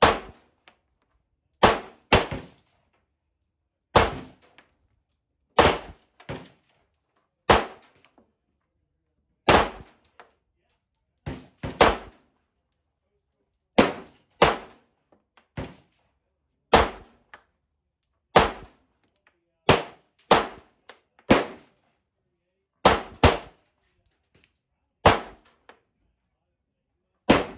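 Handgun shots from a 9 mm semi-automatic pistol, fired one at a time at a slow, steady pace, a second or two apart, sometimes in quick pairs. About two dozen shots, each sharp and loud with a brief ringing tail.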